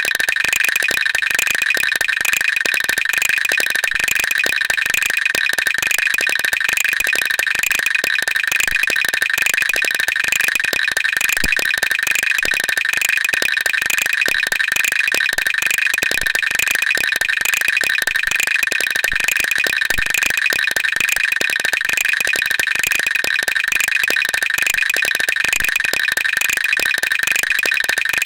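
Teeth chattering: a fast, unbroken run of small clicks that keeps an even pace, with a steady high tone held beneath it.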